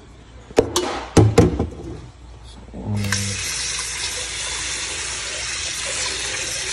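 A few sharp metal knocks as a cooking pot is handled and set down in a stainless steel sink. About three seconds in, the kitchen tap is turned on and runs steadily, water pouring into the pot over lemon slices and chopped ginger.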